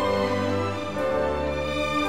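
Background music: sustained notes held in chords that change about once a second.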